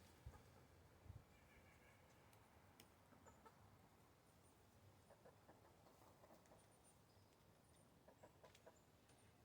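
Backyard hens clucking faintly, a few soft short clucks scattered through, mostly in the second half.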